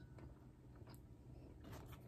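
Near silence: room tone with a couple of faint clicks.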